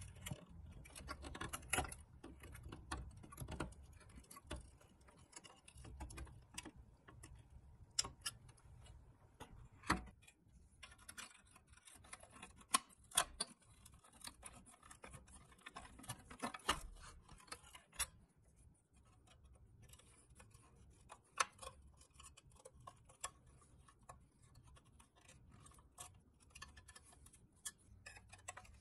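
Irregular clicks and taps of small metal toy parts and hand tools being handled.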